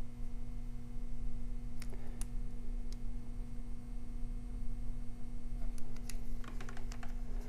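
Small clicks and taps of multimeter test probes being worked against a plastic wiring connector: a couple about two seconds in and a cluster near the end, over a steady low hum.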